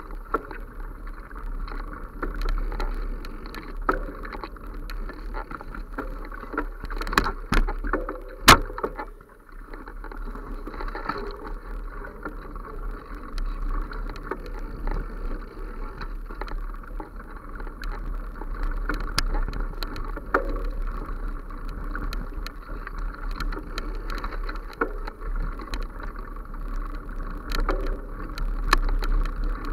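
Movement noise of a camera travelling along an overgrown forest path: steady rustling and rumbling as grass and leaves brush past, with frequent small clicks and rattles. There is a sharp knock about eight seconds in, then it is briefly quieter.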